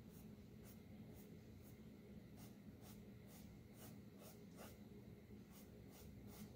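Faint short strokes of a paintbrush skimming acrylic paint across a canvas panel, about two a second, with a brief pause about five seconds in. The brush carries little paint, dry-brushing a wood texture.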